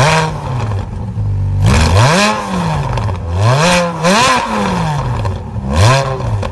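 Ferrari F430's 4.3-litre flat-plane-crank F136 V8 being blipped from idle through its exhaust. It gives about five quick revs, each a sharp rise and fall in pitch, with a low idle between them.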